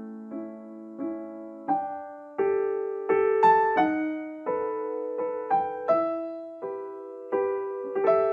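Background piano music: a slow, gentle melody of single struck notes, roughly one or two a second, each ringing and fading.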